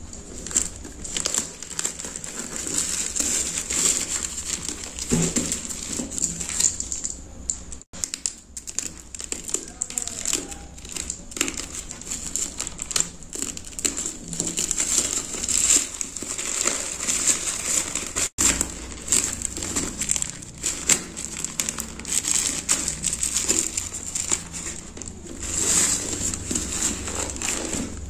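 A black plastic parcel wrap and clear packing tape crinkle and tear as a package is cut open and unwrapped by hand. The sound is a dense crackling that breaks off for an instant twice.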